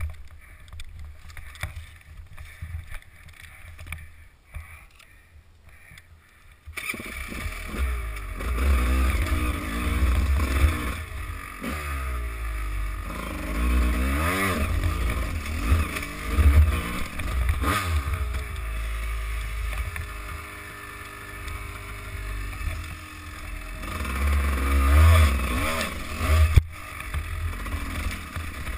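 Dirt-bike engine, quiet for the first several seconds, then revving up and down repeatedly from about seven seconds in as the bike is ridden over rough rocky ground.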